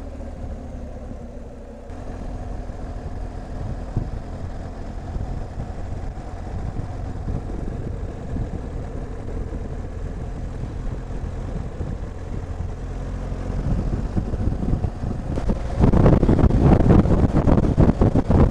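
BMW R1250 GS Adventure's boxer-twin engine running under way. Near the end, a loud rush of wind on the microphone suddenly takes over.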